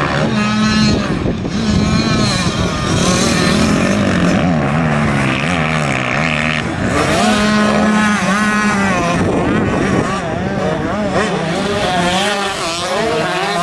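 Several motocross bikes racing round a dirt track, their engines revving up and falling back repeatedly as the riders throttle through the corners and over the bumps, several engines overlapping at once.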